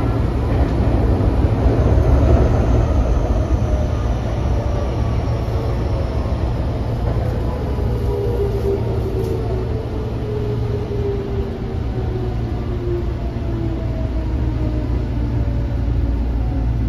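Tokyo Metro 05 series electric commuter train heard from inside the carriage: a steady rumble of wheels on rail with a motor whine that falls slowly in pitch as the train slows.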